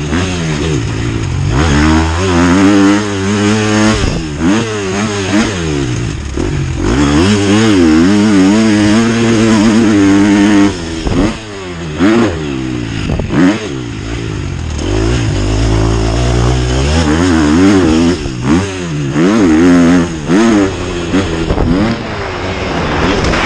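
Husqvarna 250 motocross bike engine revving hard and shutting off again and again as it is ridden round a dirt track, its pitch climbing and falling with each gear change and throttle chop. Several brief throttle cuts come in quick succession about halfway through.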